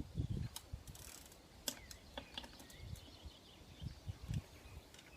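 Scattered light clicks and a few soft knocks from a hand tool tightening the opposing 5mm pinch bolts on a Shimano Hollowtech II crank arm.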